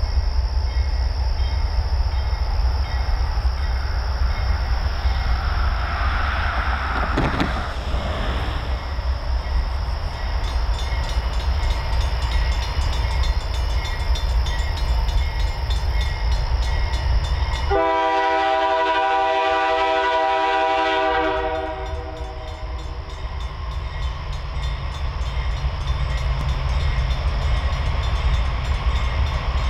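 Diesel freight locomotive's multi-chime air horn sounding a long blast of about four seconds, starting abruptly about two thirds of the way in, over the train's steady low rumble. Before the horn, the low rumble runs with a thin steady high tone above it.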